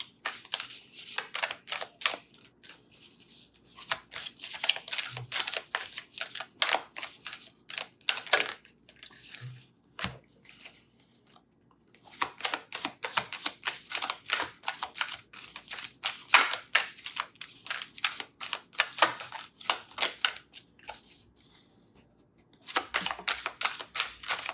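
A Many Queens Tarot deck being hand-shuffled: rapid papery flicks and clicks of cards sliding against each other, in runs of several seconds with short pauses, the longest about ten seconds in.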